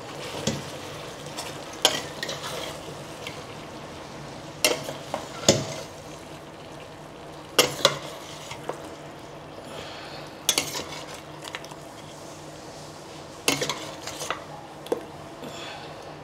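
Steel spoon scraping and clinking against a steel pot and a kadhai as cooked chicken curry is spooned from one into the other, with sharp clinks every few seconds over a steady hiss.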